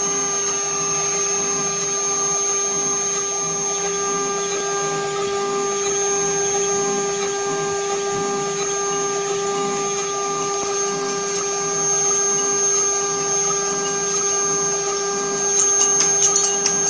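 CNC router spindle whining at a steady pitch as its end mill cuts into an aluminum plate, engraving a letter, with a hiss of cutting noise under the whine. Near the end a quick run of sharp ticks comes in and the sound grows a little louder.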